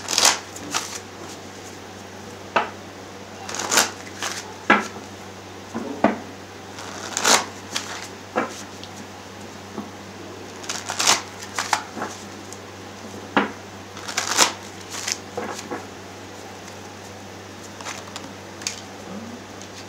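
A deck of tarot cards being shuffled by hand: a series of short bursts of card noise at uneven intervals, some about a second apart, with pauses of a few seconds between runs.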